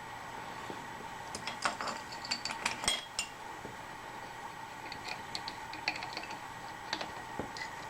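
Light metallic clinks and rattles of steel tooling and parts being handled and set down around a rotary table setup, in a busy cluster and then a lighter one, over a steady faint machine hum.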